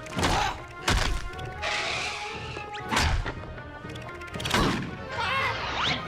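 Cartoon orchestral score with slapstick sound effects: several loud thuds and crashes spread through it, a hiss, and sliding effect tones near the end.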